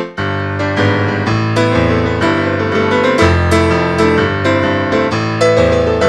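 Piano music: a quick, continuous flow of notes over low, sustained bass notes.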